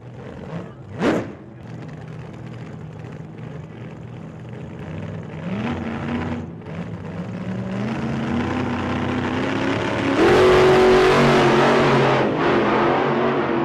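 A car engine accelerating, its pitch climbing in steps and getting louder, loudest from about ten seconds in, with a quick whoosh about a second in.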